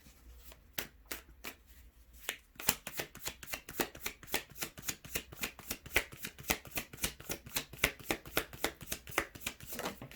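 A tarot deck shuffled by hand: a steady run of quick card slaps and clicks, about four or five a second, sparse at first and settling into a regular rhythm after about two seconds.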